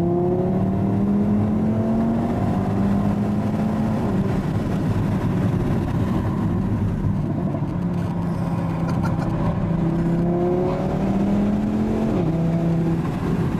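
2015 Audi RS3's 2.5-litre turbocharged five-cylinder engine, heard from inside the cabin, pulling under acceleration with its exhaust valves open in Dynamic mode: the note rises in pitch, drops back at an upshift and rises again, with an easing-off in the middle.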